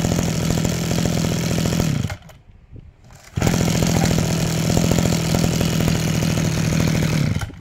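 Mitsubishi TL261 two-stroke brush-cutter engine running steadily at one speed. It dies away about two seconds in, is back running a second or so later, and winds down again near the end.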